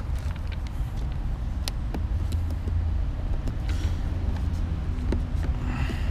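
Steady low rumble, with a few sharp plastic clicks and brief scraping as the pull-down tabs of a 2009 Mustang's tag light housing are pried loose.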